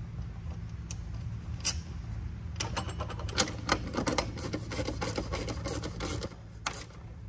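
Combination wrench turning a nylock nut onto the bolt of an aluminium bimini-top bracket on a pontoon railing: a few single clicks, then a fast run of small metal clicks from about two and a half seconds in to about six seconds in, over a steady low hum.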